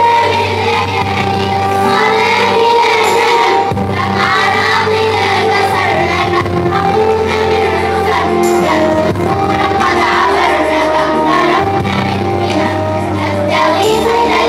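Primary-school children's choir of girls singing a song with electronic keyboard accompaniment. Held low keyboard notes sit under the moving melody.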